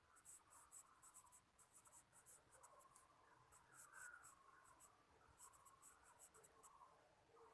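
Faint scratching of handwriting: many short, quick strokes of a pen or marker, coming in clusters with brief gaps, likely the next example word being written out.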